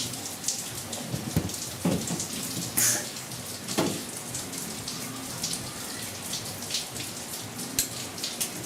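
Heavy rain pattering steadily with irregular small crackles, and a few dull knocks in the first four seconds.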